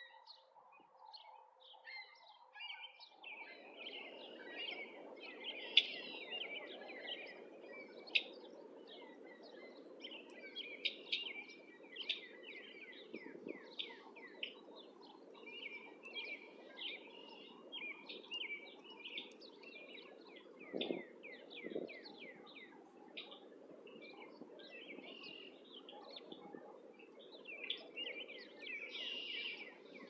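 Many small birds chirping in quick, short, downward-sliding notes, almost without pause, over a steady low rushing background. A held low tone, the tail of background music, stops about three seconds in.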